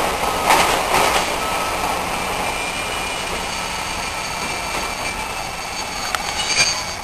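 Passenger coaches of an express train rolling past as it arrives at a station, with a few wheel knocks over rail joints in the first second or so. A thin, high squeal sets in a few seconds in as the train slows.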